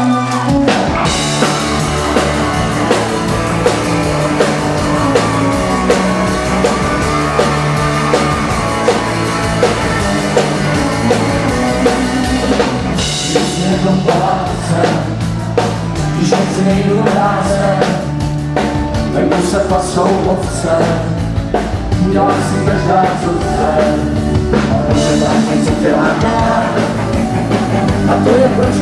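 Folk-rock band playing a song with drum kit, guitars and fiddle, the full band coming in about a second in with a steady beat; sung vocals over it.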